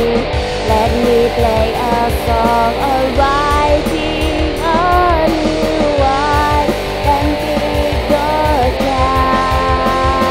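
Background music: a song with guitar, a wavering melody line and a steady beat.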